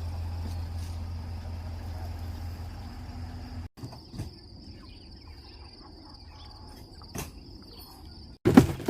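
A steady high insect trill runs throughout, over a low engine-like drone that cuts off abruptly about three and a half seconds in. After it a few faint clicks follow, and near the end there is one loud sudden knock.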